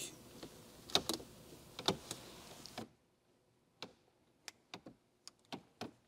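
Sharp plastic clicks and clacks from the 2025 Chevrolet Trax's gear shifter assembly being worked by hand, its shift-lock release lever held up so the shift lever can move through the gears. About a dozen irregular clicks, a few close together near the end.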